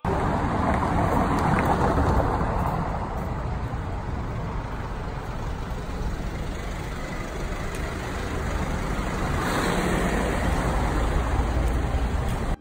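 Street traffic noise: a steady rumble and hiss of road vehicles, swelling slightly at the start and again about ten seconds in.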